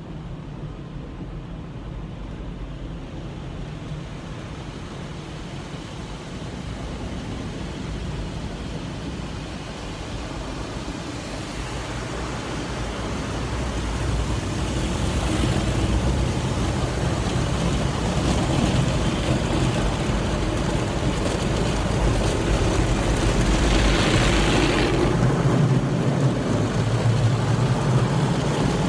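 Automatic drive-through car wash working over a car, heard from inside the cabin with the engine off: a steady rumble and water spray hissing on the body and windscreen. It grows louder about halfway through.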